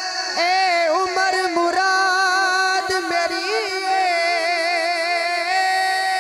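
A male voice singing long, wavering held notes without words through a microphone, entering about half a second in, over a steady instrumental drone.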